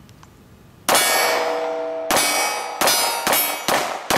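Six shots from a Glock 43 single-stack 9mm pistol, the first about a second in and the rest in quicker succession, each answered by the clang of a steel target ringing on after the hit.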